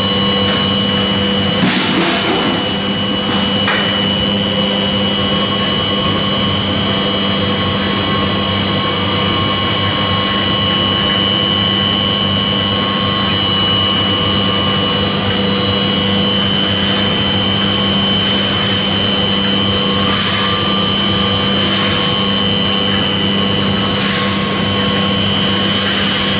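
Small wood pellet mill running steadily under load as it presses sawdust into pellets: a constant motor hum with a high whine over it. A few brief rushing bursts break in, about two seconds in and several times in the last ten seconds.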